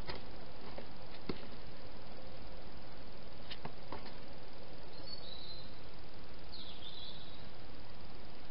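Steady hiss from a night camera's microphone, with a few sharp clicks from a hedgehog eating from a bowl, and two short high chirps in the second half.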